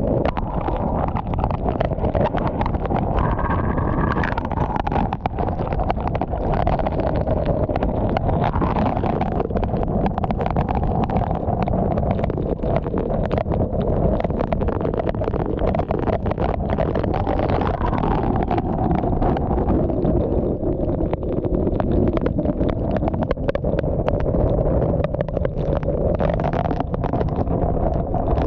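Hurricane-force wind howling around a car, its pitch rising and falling with the gusts, while heavy wind-driven rain pelts the windshield and body in a dense patter of hits.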